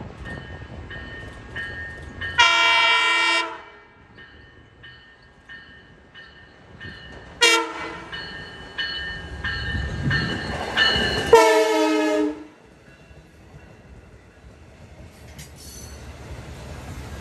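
LIRR bilevel cab car's horn sounding one long, one short and one long blast as the train approaches, with a bell dinging steadily about twice a second between blasts. The train's rumble grows louder near the end as it draws alongside.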